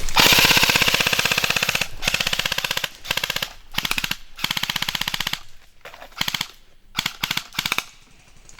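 Airsoft electric gun firing on full auto, a rapid even clatter of shots. It starts with a long burst of about two seconds, followed by several shorter bursts that grow fainter near the end.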